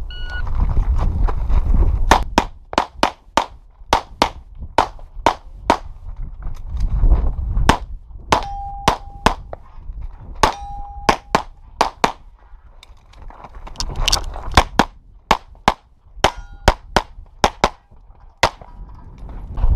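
A short beep, then rapid strings of pistol shots with brief pauses between groups, and steel targets ringing when hit.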